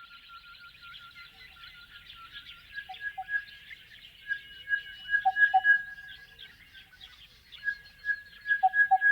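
Crested bellbird singing: a run of repeated ringing notes at one pitch, with phrases ending in two deeper, louder bell-like notes, heard three times and louder each time. Faint higher chatter runs underneath.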